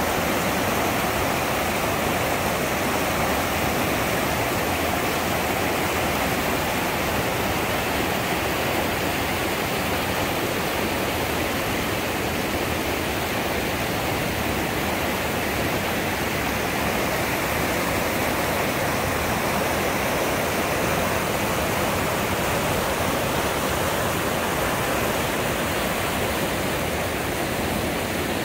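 Mountain creek rapids rushing over rock ledges: a steady, unbroken roar of whitewater.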